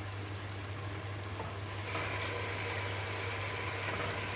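Diced onions and whole spices frying in ghee in a stainless steel pot: a steady sizzle. About two seconds in the sizzle grows a little louder as chunks of raw meat go into the hot pot.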